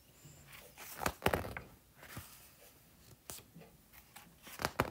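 Quiet rustling and a few sharp clicks as a picture-book page is turned by hand.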